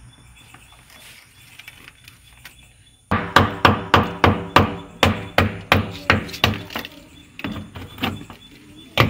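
A rapid series of hard knocks, like hammer blows, about three a second, each with a short ring. They start about three seconds in and grow weaker near the end, with one last strong knock.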